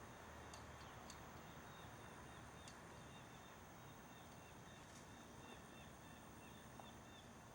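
Near silence: a steady background hiss with faint, evenly repeated high chirps and a few faint clicks.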